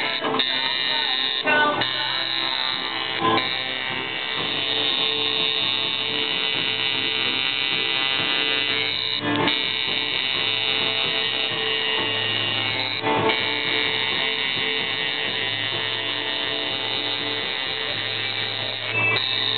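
Tattoo machine buzzing steadily as it works on skin, under background music.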